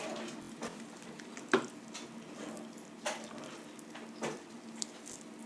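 Handling noises from cleaning out a slime container: a few short knocks and scrapes, one sharper knock about one and a half seconds in, over a faint steady hum.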